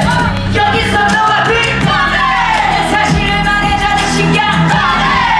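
Musical-theatre song sung live on stage over a band accompaniment with a steady beat, with a long falling sung line about two seconds in.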